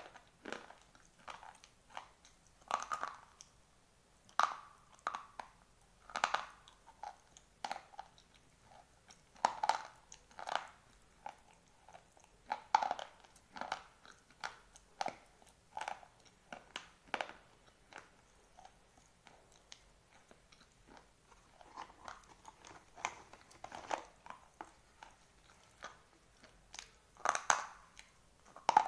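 Dry white slate pencils being bitten and chewed: a run of sharp, separate crunches, about one or two a second, thinning out for a few seconds past the middle.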